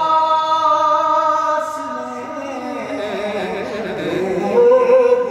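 A man singing a line of an Urdu devotional poem unaccompanied, drawing out long held notes, with a wavering, ornamented run in the middle and a strong held note near the end.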